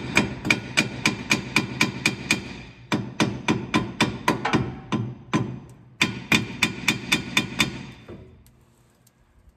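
Hammer striking metal in rapid, even taps, about five a second, in three runs of a few seconds each. Each blow rings at the same pitch, and the last run fades away.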